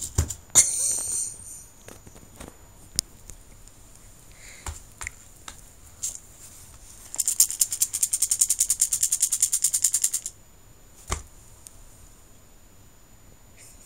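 Soroban beads rattling inside a fabric zip case as it is knocked about: a loud clatter at the start, a few scattered clicks, then a fast even rattle for about three seconds past the middle, and one more knock near the end.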